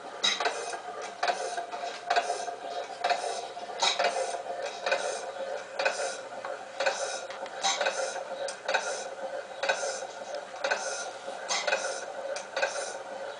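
Restored 1896 T. Melvin town-gas engine, a horizontal single-cylinder stationary engine of about 2 horsepower, running slowly at around 120 revs: a regular sharp clack about once a second with lighter clicks of the valve gear between.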